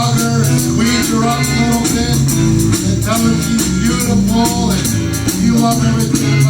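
Blues song playing: electric band with bass guitar, guitar and a steady drum beat, with a bending melodic line over it.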